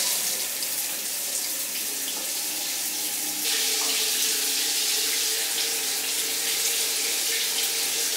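Shower water running, a steady hiss that gets louder about three and a half seconds in.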